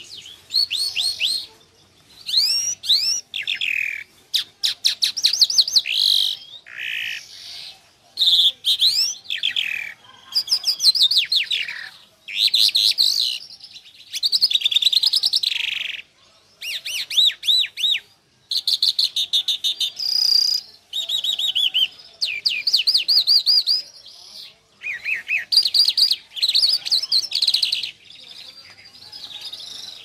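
A small caged songbird singing: repeated phrases of quick, sweeping, chirping notes, each a second or two long, with short pauses between them.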